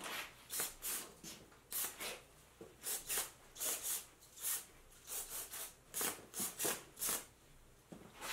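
Aerosol carb cleaner sprayed in about twenty short hissing bursts, a few a second, into the passages and jet bores of a BS34 constant-velocity carburetor to blast out old gunk.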